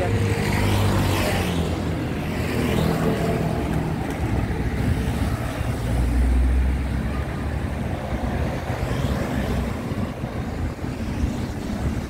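Road traffic: motor vehicles passing close by, their engine hum falling in pitch as they go past, with a heavier low rumble about six seconds in.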